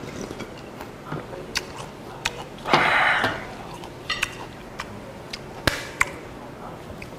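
Eating at the table: cold squid mulhoe broth drunk from a glass bowl, with a breathy rush about three seconds in, then the bowl and chopsticks clicking and clinking on the table a few times.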